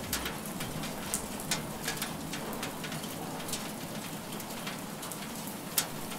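Rain falling: a steady hiss with scattered sharp drop ticks, one louder drop near the end.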